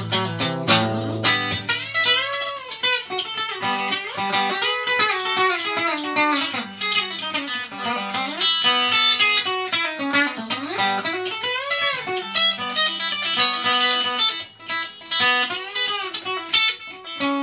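Country-style electric guitar lead playing an instrumental break, its notes often bent up and down in pitch, over a backing accompaniment.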